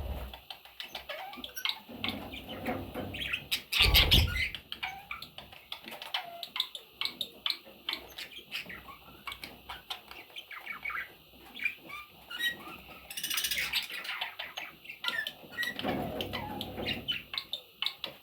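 Budgerigars chirping and chattering, with many short, quick calls throughout. A louder brief burst of noise comes about four seconds in, and another near the end.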